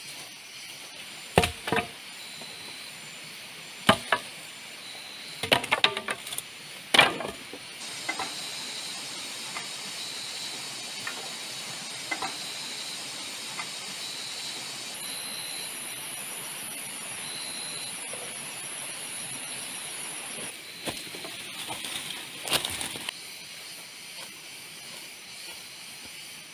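Steady high hiss with several sharp knocks and clinks over it: a cluster in the first seven seconds and another about twenty-two seconds in.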